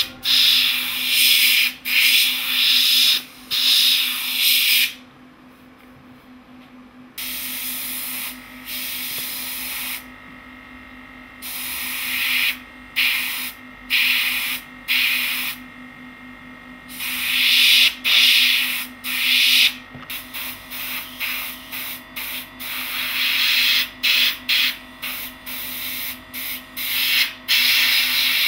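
Airbrush spraying model paint, hissing in repeated bursts of a second or two as the trigger is pressed and released, with a few longer pauses. A steady low hum runs underneath.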